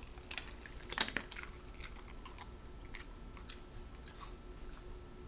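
A cattle dog chewing a treat: a scatter of short, crisp crunches at irregular intervals, the loudest about a second in.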